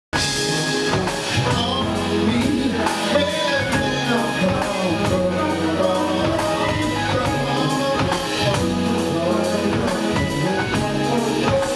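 Live band music with drum kit and bass and some singing over it, starting abruptly.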